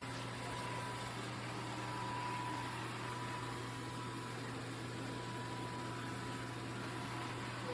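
MOVA S10 Plus robot vacuum running: a steady low hum with a thin, constant whine on top and a hiss of airflow, beginning abruptly.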